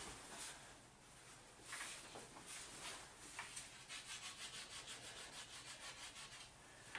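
Faint rubbing and scraping, with a quick run of light, even strokes, about five or six a second, in the second half.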